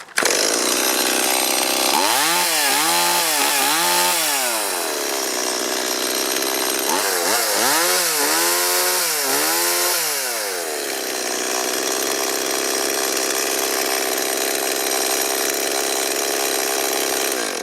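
Stihl MS 170 two-stroke chainsaw running, its engine speed swinging up and down in two groups of quick revs and steady in between. It runs well after its rebuild with a new carburetor, fuel line and filter.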